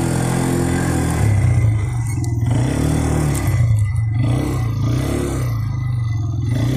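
Quad bike (ATV) engine revving up and easing off several times as it is ridden over dirt.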